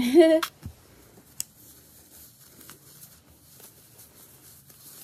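Faint rustling of a cloth ribbon and costume fabric as hands untie the ribbon, with one sharp tick about a second and a half in.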